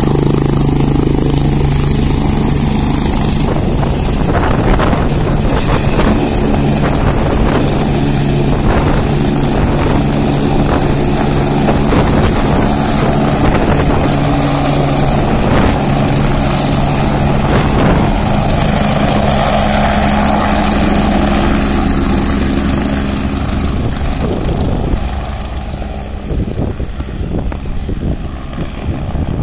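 AgustaWestland turbine helicopter running at full power for takeoff: a high turbine whine over the heavy beat of the rotor as it lifts off the pad, then the sound drops away near the end as it flies off.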